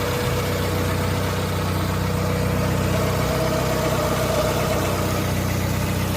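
Freshly overhauled 1995 Honda Civic engine idling steadily, with a constant thin whine over the low running note. The rebuild has cured a lost-compression no-start, and it now runs.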